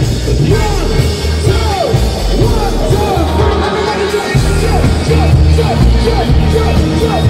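A live band playing loud through a big PA, with heavy bass and electric guitar; the low end drops away for a moment just before four seconds in, then comes back. Crowd shouts and singing along mix in.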